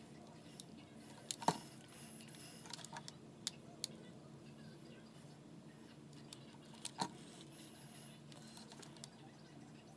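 Faint scattered clicks and taps from a hot glue gun being worked along the seams of a plastic mold box, with two louder knocks, one about a second and a half in and one about seven seconds in, over a low steady hum.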